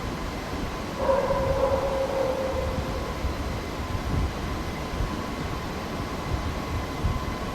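Welding cobot arm's joint servo motors running as the robot carries out its automatic payload-identification motions, over a steady low rumble; a motor whine starts about a second in and fades away over the next two seconds.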